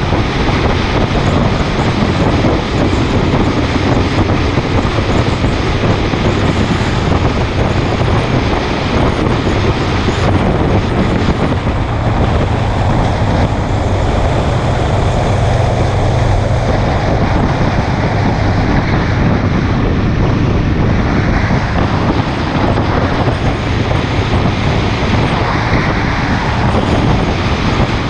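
Wind rushing over the microphone of a camera on a motorcycle at road speed, steady throughout, with the motorcycle's engine and tyre noise underneath.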